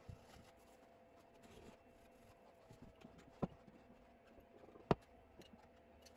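Quiet room tone with a faint steady hum, broken by two short, light knocks about three and a half and five seconds in.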